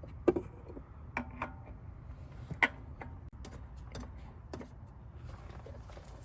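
Scattered light clicks and knocks, about half a dozen, as a new spin-on oil filter is passed up through a metal access hole and threaded on by hand, over a faint steady low hum.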